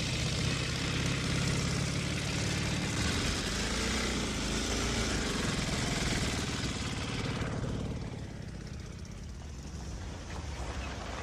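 Sidecar motorcycle engine running as it drives along a dirt road and passes close by, its pitch bending around the middle. The engine noise drops away about eight seconds in.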